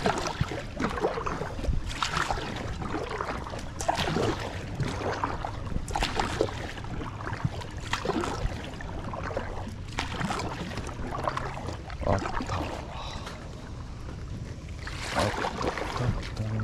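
Water and handling sounds around an inflatable packraft: sharp, irregular splashes or knocks every second or two over a steady hiss.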